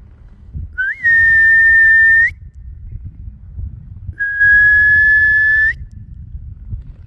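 A person whistling loudly to call cattle: two long whistles, each held on one steady high note with a short upward flick at the start or end, the first about a second in and the second about four seconds in.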